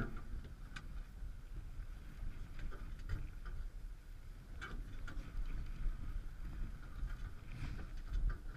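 Low steady rumble of wind and choppy sea around a fishing kayak, with light clicks every second or so.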